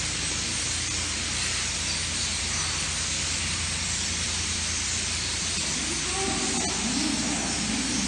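Dense, continuous chattering din of a roost of roughly two thousand European starlings in barn rafters, with a steady low hum underneath.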